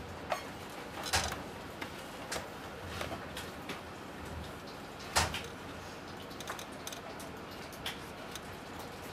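Quiet open-plan office ambience: a steady hum of tower computers with scattered knocks and clicks from desk work. The loudest knocks come about a second in and again about five seconds in.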